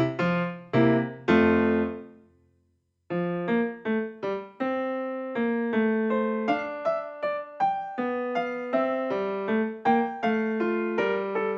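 Background piano music: a melody of struck notes that fades out about two seconds in, breaks off for under a second, then starts again.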